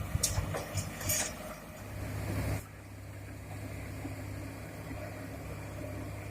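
Heavy diesel earthmoving machinery at work: a few clanks and knocks over noisy machine sound for the first two and a half seconds, then an abrupt change to a steady low engine idle.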